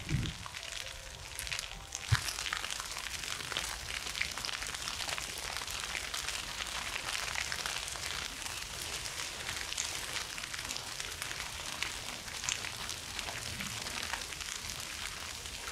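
Dry grass and scrub burning, a dense steady crackle of many small pops, with one sharper crack about two seconds in.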